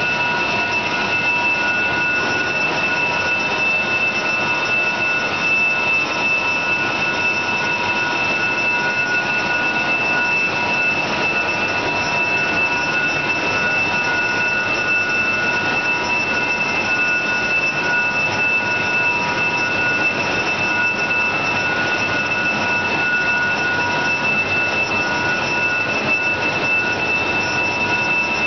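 Fourdrinier paper machine running: a steady mechanical rushing noise with several steady high whining tones over it.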